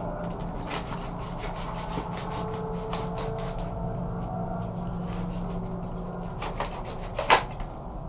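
Fillet knife scraping between a sheepshead fillet's skin and flesh on a fillet board, skinning the fillet: a run of short rasping strokes, with one sharp tap near the end. A steady low hum sits underneath.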